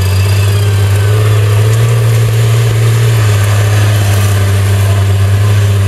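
Competition 4x4 truck's engine running hard under load as it climbs a steep dirt bank, a steady low drone that rises slightly in pitch about two seconds in and then settles back.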